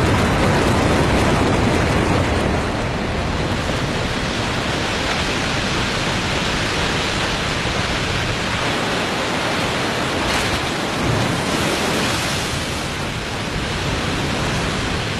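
Waterfall in spring breakup: meltwater carrying mud and broken ice over a 35-metre drop, a loud, steady, dense rushing that barely changes.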